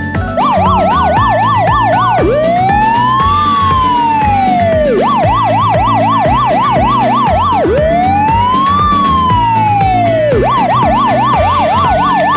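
Electronic emergency-vehicle siren switching between a fast yelp, about three to four warbles a second, and a slow rising-and-falling wail, twice each, over background music with a steady beat.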